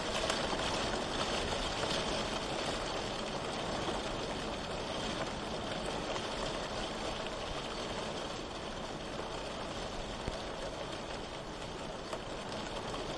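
Steady rain falling: an even, continuous hiss of rain with no thunder.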